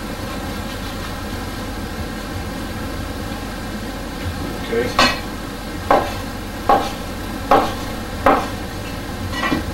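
Knife cutting a rolled cylinder of dough into pieces on a wooden cutting board: about six sharp knocks of the blade on the board, roughly one a second, starting about halfway through, over a steady background hum.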